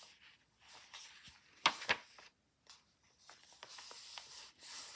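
Paper pages of a handmade junk journal being handled and turned, rustling and rubbing, with one sharp tap or flap about a second and a half in and a few lighter ticks.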